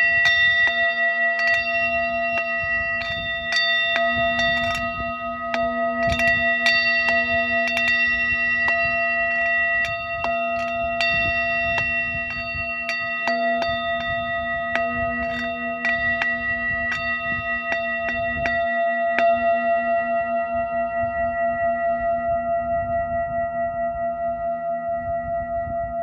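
Brass singing bowl struck several times with a felt-covered mallet, ringing with a steady hum of several tones layered together. Toward the end the ring wavers in a slow, even pulse.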